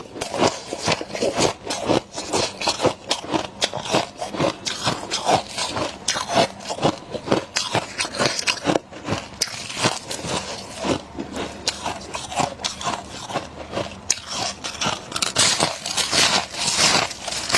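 Freezer frost being bitten and chewed close to the microphone: a fast, continuous run of crisp crunches, several a second, growing denser and louder near the end.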